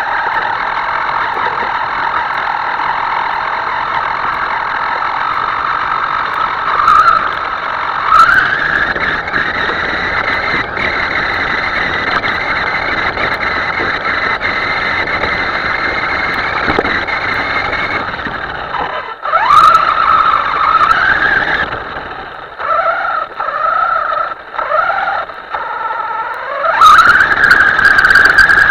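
Small electric motor of a radio-controlled model whining steadily, its pitch rising sharply in several throttle bursts, with a stretch of short on-off pulses of throttle near the end.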